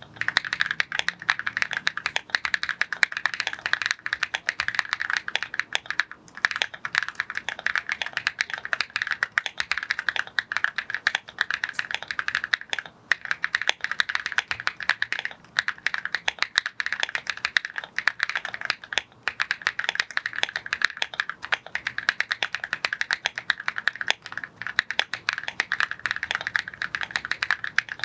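Fast, continuous typing on a Rainy75 mechanical keyboard fitted with KTT Baby White linear switches: a dense stream of key presses. There are brief pauses about six, thirteen and nineteen seconds in.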